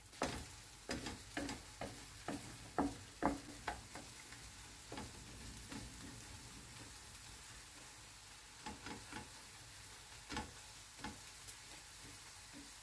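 Eggs and leek frying in a non-stick pan with a steady soft sizzle, while a wooden spatula stirs and scrapes them against the pan: quick strokes about twice a second for the first few seconds, then only now and then.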